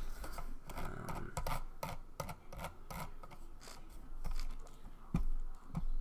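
Baseball cards and card packs being handled on a table: a run of small sharp clicks, taps and cardboard scrapes, with a couple of louder knocks near the end.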